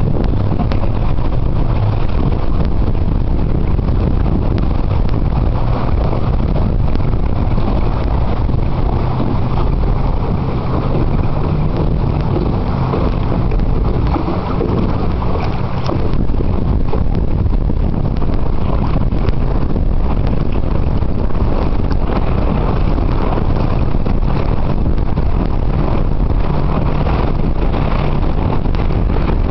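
Steady wind buffeting the microphone aboard a Michalak Blobster sailboat under way, with water rushing along the hull and churning in its wake.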